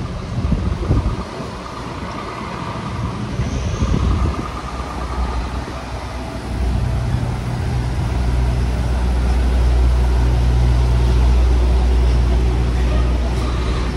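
Motor vehicle engine running close by, a steady low hum that sets in about halfway through. Before that, gusts of wind buffet the microphone.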